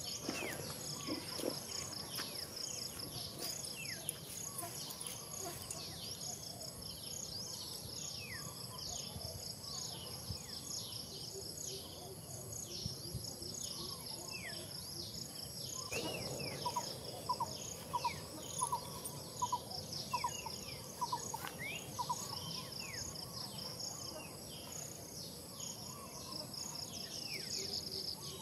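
Steady chorus of insects, a fast pulsing high trill, with many short downward chirps scattered throughout. About halfway through comes a run of about a dozen short, evenly spaced calls, roughly two a second, which are the loudest sounds.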